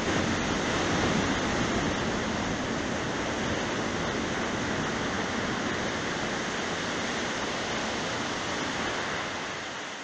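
Steady roar of ocean surf, easing off near the end.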